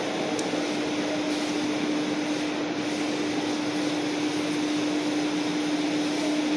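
Steady machine hum: an even hiss with one constant low tone running through it, unchanging throughout.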